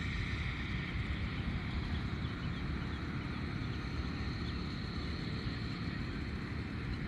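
Wind buffeting the microphone in a steady low rumble over an outdoor background hiss, with a few faint high chirps.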